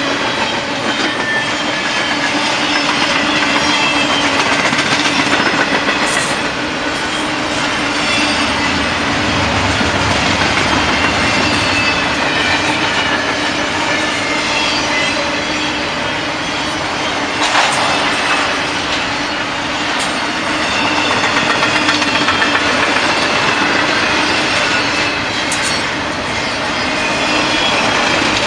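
Double-stack container well cars of a long freight train rolling past: steel wheels clattering over the rails with a steady rumble and thin, high wheel squeals coming and going. A few sharp metallic clanks stand out, the loudest about 17 seconds in.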